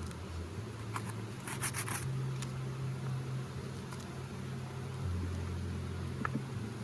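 Honeybees humming steadily around an open hive, the low drone wavering in pitch. A few short clicks and scrapes come about one to two seconds in, as wooden frames are handled.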